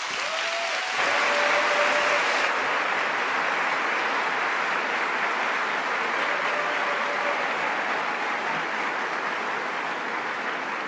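Large audience applauding steadily, swelling about a second in and then slowly easing off.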